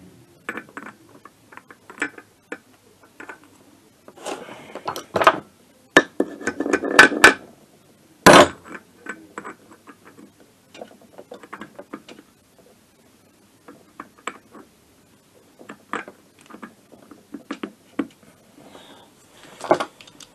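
Metal gears being handled and fitted onto the shafts of a Minarelli AM6 moped engine's open crankcase: a string of small metallic clicks and clinks, with a stretch of scraping around five to seven seconds in and one louder sharp knock about eight seconds in.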